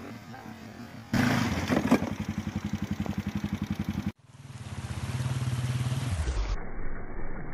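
Motorcycle engine running hard through a shallow rocky river, with a fast, even exhaust pulse over the splash of water; it cuts off abruptly about four seconds in. A steady low hum then fades in and drops lower shortly before the end.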